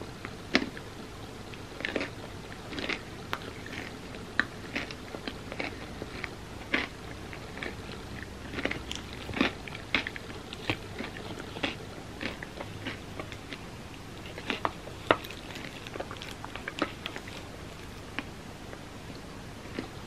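A person chewing and biting spoonfuls of chocolate banana nicecream with crunchy toppings, close to the microphone: wet mouth sounds and irregular sharp clicks and crunches, thinning out near the end.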